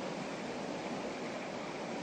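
River water flowing over rocks, a steady rushing noise.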